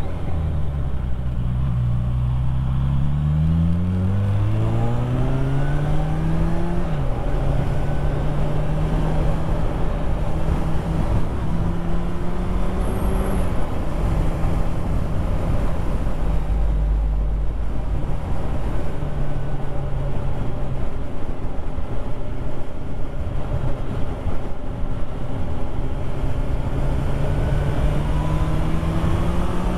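Motorcycle engine heard on board, rising in pitch as the bike accelerates, then falling sharply about seven seconds in at a gear change. It then runs at a steady cruise under constant wind and road rush, and the revs climb again near the end.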